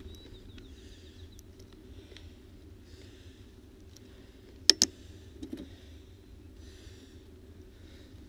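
A person breathing hard and rhythmically, about one breath a second, over a steady low rumble. Two sharp clicks in quick succession a little past the middle are the loudest sound, followed by a couple of softer knocks.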